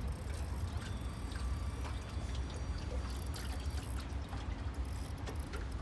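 Water lapping and trickling against a boat hull, over a steady low rumble of wind on the microphone.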